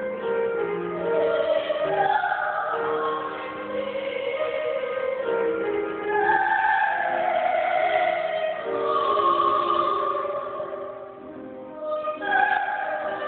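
A woman singing solo in long phrases of held notes, with a brief break about eleven seconds in before the next phrase.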